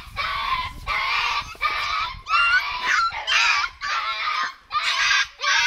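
A puppy crying in a string of loud, high yelps, about one and a half a second, while being held and washed in a bucket of water.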